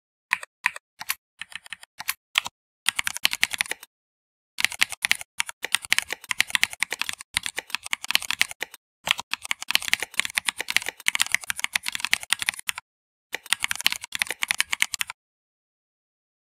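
Typing on a computer keyboard: quick runs of key clicks with a few short pauses, stopping near the end.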